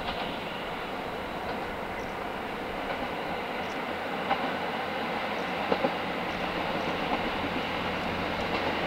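A train running on the line: a steady rumble that grows slightly louder, with a few sharp clicks about four and six seconds in.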